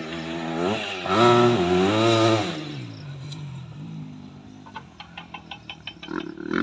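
Motocross dirt bike engine revving hard, its pitch climbing and dropping through throttle and gear changes. It is loudest about a second in, then fades as the bike moves off. Near the end there is a quick run of ticks, and another bike's engine comes up loud.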